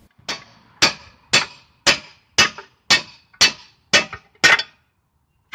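Hammer blows on a capped steel pipe set over the lower ball joint of a 1997 Honda Accord steering knuckle, driving the ball joint out: about nine sharp metallic strikes, roughly two a second, that stop shortly before the end.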